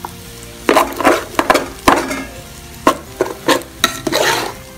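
Metal spatula stirring and turning fried rice in a pan, scraping and knocking against the pan about ten times at an uneven pace.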